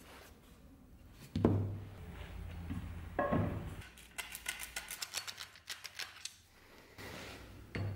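Hand tools knocking and clicking against a steel axe head on a wooden handle: a few sharp knocks, and in the middle a quick run of sharp clicks, about eight a second, for a couple of seconds.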